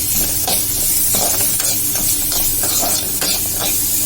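Onion, green chilli, ginger and garlic sizzling in hot oil in a kadai, with a spatula stirring and scraping the pan about two or three times a second.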